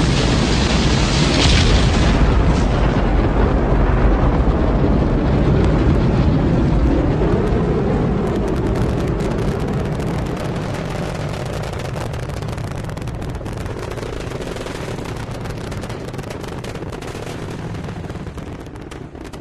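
Space Shuttle launch roar: a deep rumble with crackling that slowly fades as the vehicle climbs away, cut off abruptly at the end.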